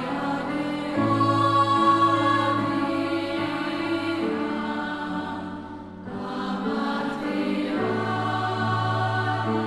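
Background choral music: long held sung chords that change every few seconds, fading briefly about six seconds in before the next chord.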